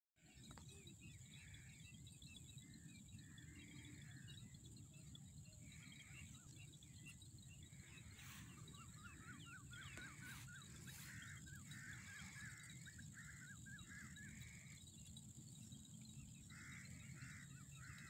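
Faint open-field ambience: small birds chirping in short repeated calls, busiest in the middle, over a low wind rumble on the microphone and a steady high whine.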